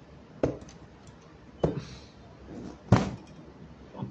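Fiberglass umbrella ribs flicked by hand, giving three sharp flicks about a second and a quarter apart, each with a short ring. A fainter flick comes near the end.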